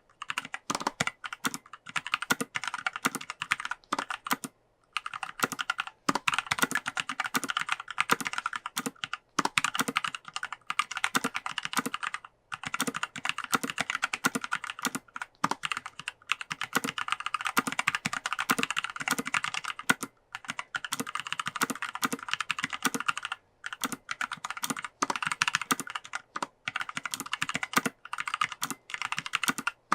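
Mechanical keyboard with Kailh Pro Heavy Berry linear switches and a Kailh Navy clicky space bar, on an aluminium plate with PBT keycaps, being typed on fast in continuous runs, broken by a few brief pauses.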